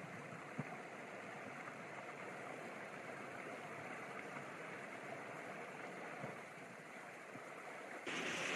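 Small upland mountain stream running over rocks, a steady rush of water that steps up louder near the end.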